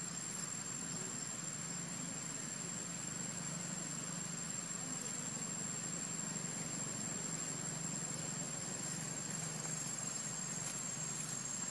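Steady outdoor ambience: a continuous high-pitched insect drone over an even hiss and a low steady hum.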